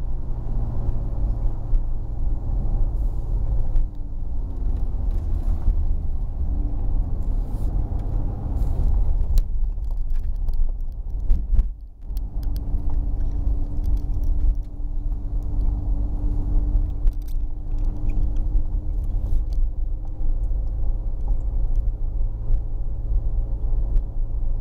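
Car engine and road rumble heard from inside the cabin while driving, with a steady engine hum that briefly drops away about halfway through.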